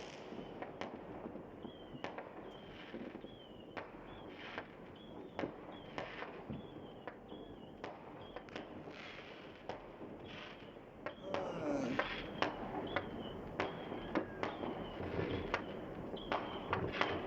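New Year fireworks going off all around: scattered sharp bangs and crackles, some close together, growing busier and louder about eleven seconds in.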